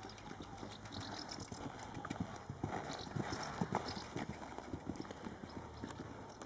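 Hoofbeats of a paint horse cantering on soft arena dirt, a quick uneven drumming. They grow louder as the horse passes close, about three to four seconds in, then fade.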